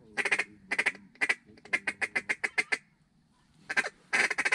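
Duck call blown close by in a series of quacks: a few spaced single quacks, then a fast run of about eight, a pause, and another quick burst near the end.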